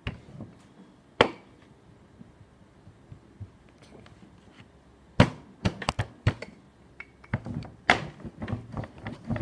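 Wooden rolling pin rolling a clay slab between wooden guide boards, with sharp wooden knocks as the pin hits the boards: the sign that the slab is down to the boards' even thickness. There is a quiet stretch in the middle while the slab is handled, then a cluster of knocks, and more near the end.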